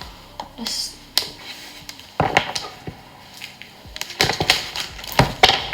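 Irregular sharp clicks and taps, a few sparse ones early and closer-spaced clusters from about two seconds in and again in the last couple of seconds.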